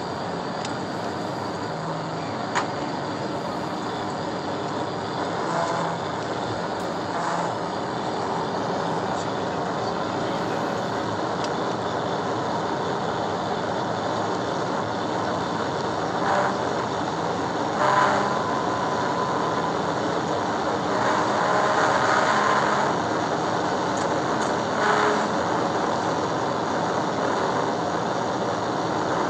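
Steady road, tyre and wind noise of a police cruiser travelling at about 130 to 140 mph, heard through the in-car microphone, with a few brief clicks or knocks.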